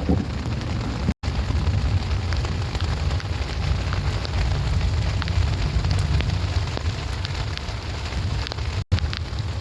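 Steady rain falling, with scattered ticks of individual drops over a heavy low rumble. The sound cuts out for an instant twice, about a second in and near the end.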